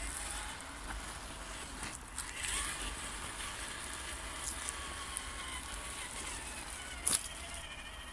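Radio-controlled TRX-4 crawler's electric motor and gears whining faintly as it drives over sandy ground, the pitch sliding with the throttle, over a steady outdoor hiss. One sharp click about seven seconds in.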